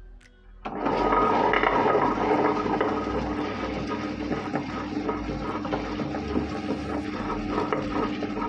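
Tabletop wet grinder starting up about a second in, its two stone rollers grinding soaked urad dal in the turning stainless steel drum, then running steadily with a constant motor hum under the grinding noise.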